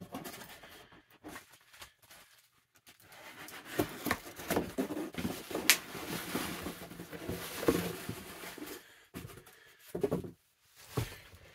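A cardboard shipping box being handled and opened, with the plastic packing bag inside rustling and crinkling and scattered sharp clicks, then a couple of dull thumps near the end as the box is put down.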